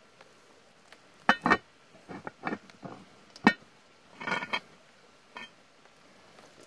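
A handful of sharp knocks and clanks, a few with a short ring, with a brief scraping rustle about four seconds in.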